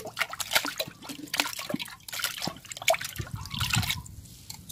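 A hand swishing and splashing liquid around in a plastic bucket, in many irregular splashes. Later, water trickles from a small glass jar tipped into the bucket.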